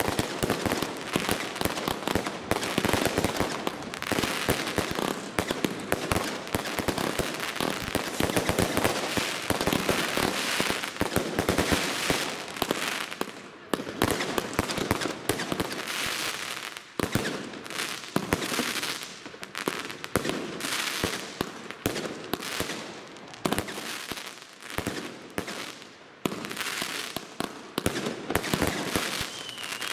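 Chained consumer firework batteries firing in quick succession: a dense, unbroken stream of launch thumps, shell bursts and crackling, thinning briefly about halfway through and again later on.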